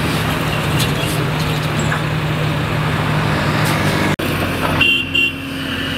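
A motor engine runs steadily over road-traffic noise and is cut off abruptly about four seconds in. It is followed by a different traffic background with a high steady tone and two short high-pitched beeps.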